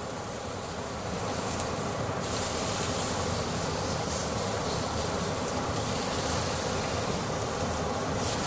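Marinated chicken breasts sizzling steadily on a hot, fat-free ridged griddle pan. The sizzle grows louder about a second in, as the breasts are turned over with tongs.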